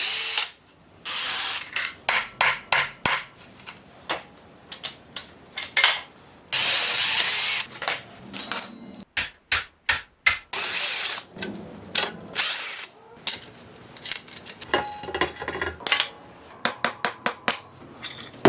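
Hand and power tools at work taking apart a 1996 Suzuki RM250 dirt bike: many sharp metallic clicks and knocks from wrenches and parts, broken by three or four power-tool runs of one to two seconds each.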